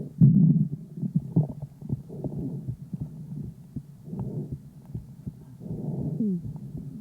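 A calf's lung sounds picked up by a stethoscope microphone pressed to the left side of the chest at its first examination: several breaths in and out, with many short clicks between them and a brief falling whistle about six seconds in.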